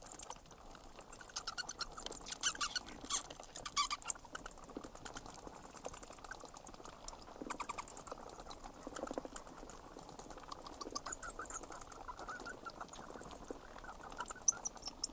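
Bats squeaking: rapid trains of very high-pitched squeaks in repeated bursts, some lower-pitched calls among them.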